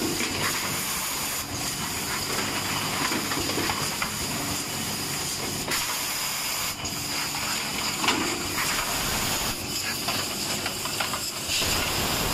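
Cap foil-liner inserting machine running: a steady compressed-air hiss with scattered mechanical clicks and clacks.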